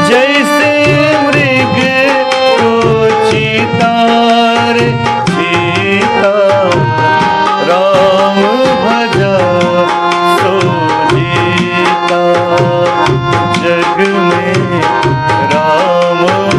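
Tabla playing a steady rhythm under a harmonium's held notes, with a melody line that glides in pitch: an instrumental interlude between verses of a Hindi devotional bhajan.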